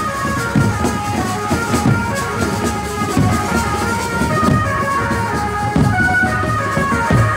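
Wedding procession music: drums beating under a melody of held notes that step up and down.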